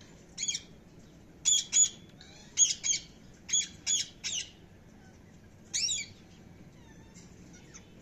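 Indian ringneck parakeets squawking: about nine short, high-pitched calls, mostly in quick pairs, which stop about six seconds in.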